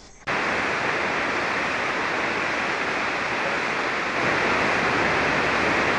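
Steady hiss of band static from an HF ham radio receiver on 40-metre SSB, cutting in suddenly about a third of a second in, with no voice readable in it. It leaves the operator unsure whether the other station, its mic gain turned down low, was transmitting at all.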